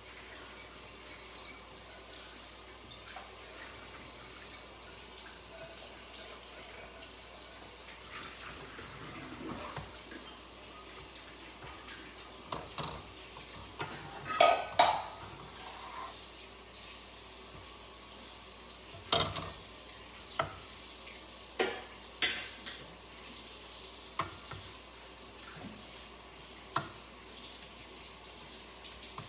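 Food frying in a nonstick pan with a steady low hiss, while a spatula scrapes and knocks against the pan. There are scattered sharp clacks, the loudest about halfway through, then several more spaced out over the next ten seconds.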